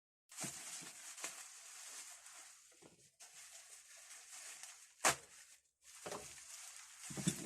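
Wrapping and packaging rustling as a parcel is unwrapped by hand, with a few light knocks and one sharp knock about five seconds in.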